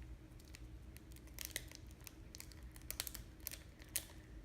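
Faint crinkling and scattered small clicks from a slime-kit powder packet being handled and emptied into a bottle of water, over a faint steady hum.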